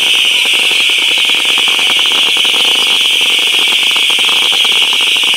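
Fireworks crackling in a dense, rapid stream over a steady high-pitched hiss.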